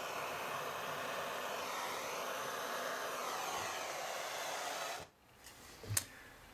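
Blow lamp flame hissing steadily as it heats a joint for silver soldering, shut off about five seconds in; a light knock follows.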